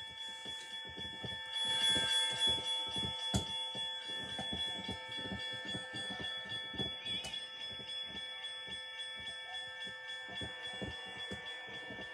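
Toy railroad crossing signal ringing its bell: a steady ringing with a fast, even run of strikes, a little louder about two seconds in.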